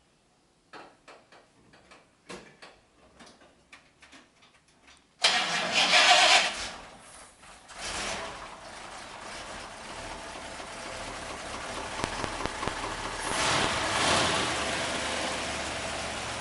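A few irregular clicks and knocks, then the 302 V8 of a 1959 Ford F100 fires about five seconds in with a sudden loud burst of revs. It settles to a rumbling idle that swells again briefly with a second rise in revs later on.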